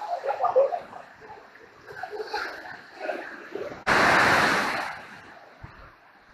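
Niagara River whitewater rapids rushing and churning. About four seconds in, a loud rushing burst starts suddenly and dies away over about a second.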